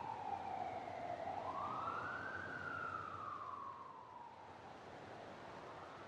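Emergency vehicle siren wailing, its pitch falling, rising to a peak about two seconds in, then falling slowly, over a steady hiss; it grows fainter after about four seconds and begins to rise again near the end.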